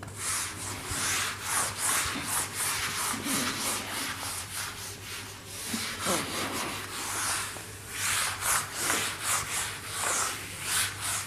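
Whiteboard eraser rubbing across a whiteboard, wiping it clean in repeated quick back-and-forth strokes that make a continuous scrubbing hiss.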